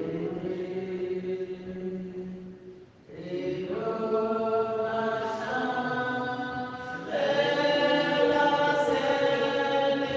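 Voices singing a slow sacred chant in long held notes that step from pitch to pitch. There is a brief pause for breath about three seconds in, and a fuller, louder phrase begins about seven seconds in.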